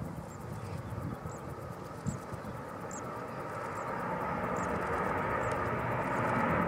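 Airbus A350-1000's Rolls-Royce Trent XWB-97 turbofans at climb power just after takeoff, a broad jet rumble growing steadily louder as the aircraft comes overhead. A faint high chirp repeats about once a second underneath.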